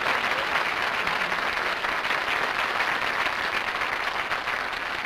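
Studio audience applauding, a steady wash of clapping that eases slightly near the end.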